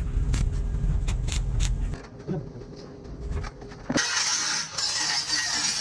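Angle grinder's cut-off disc cutting through a steel pipe, a loud dense hiss of abrasive on metal that starts suddenly about four seconds in. Before it there is a low rumble with scattered sharp clicks.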